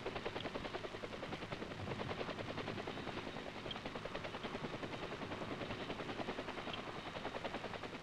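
Helicopter rotors beating in a rapid, even rhythm over engine noise, steady throughout.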